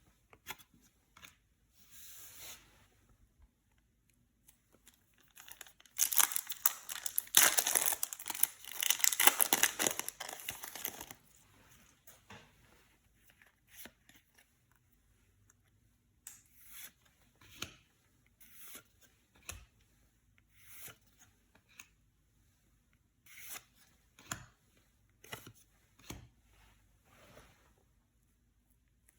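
Yu-Gi-Oh card box packaging torn open by hand: a loud stretch of tearing and crinkling lasting about five seconds, then scattered short, soft rustles and taps of the packaging being handled.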